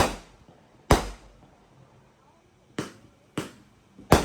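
Fireworks going off: a string of sharp bangs, each trailing off, about five in four seconds with a pause of over a second in the middle.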